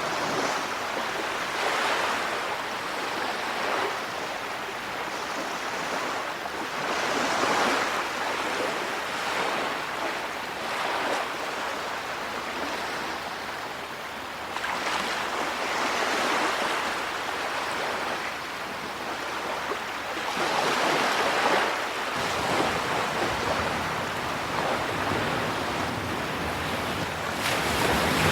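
Ocean waves washing onto a shore, the surf swelling and receding every few seconds with a steady hiss between breakers, and wind rumbling on the microphone toward the end.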